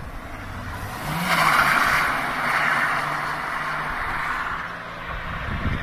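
A BMW drift car's engine held high in the revs with its rear tyres skidding on the tarmac, getting loud about a second in and fading over the following seconds as the car slides by.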